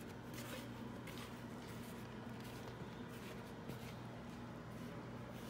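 Faint rustling and handling noises, a few soft scuffs, over a steady low electrical hum.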